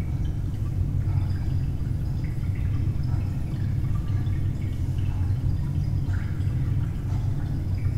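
Dark ambient drone: a steady deep rumble with sparse faint drip-like blips above it.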